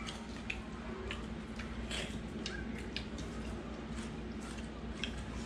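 Quiet eating sounds: scattered small clicks and soft squishing as people eat with their hands from plates and bowls, over a steady low hum.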